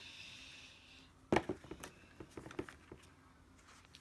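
Handling a cardboard shoebox and a pair of running shoes: faint paper rustle at first, then one sharp knock about a second in and a few lighter taps as the shoes are set down on the box.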